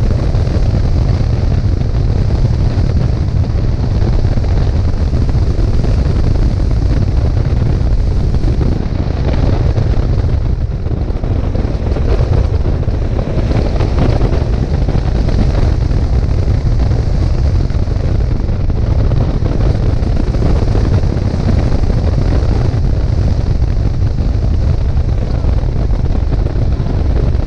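Car engine revving up and down as the car is driven hard through an autocross course, under a heavy rumble of wind buffeting the microphone.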